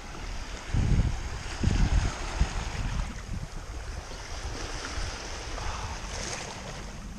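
Shallow water swishing and lapping, with wind buffeting the microphone; two heavier low rumbles of wind come about one and two seconds in.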